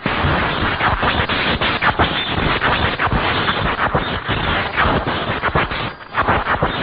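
Anime-style electric spark sound effect of the Dragon Ball Z kind: dense, continuous crackling and snapping, briefly dropping away about six seconds in.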